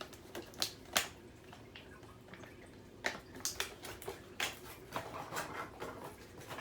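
Small plastic playset parts and their packaging being handled and taken out of a box: scattered light clicks, taps and rustles at irregular intervals.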